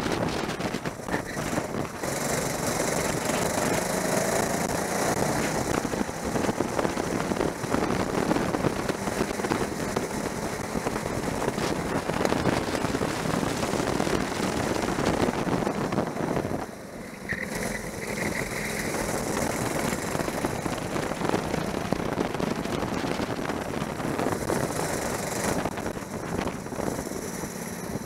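Racing kart's engine running hard at speed, heard from the kart itself with wind rushing over the microphone. The engine noise drops briefly a little past halfway, then picks up again.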